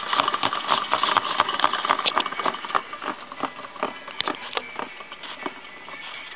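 Homemade K'nex vacuum cleaner running, its dehumidifier impeller turning slowly while the plastic K'nex parts clatter in a rapid, irregular run of clicks. The clatter is a little quieter in the second half.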